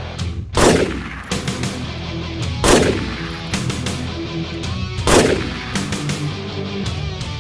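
Three AR-15 rifle shots, about two seconds apart, each ringing out briefly, over background rock music.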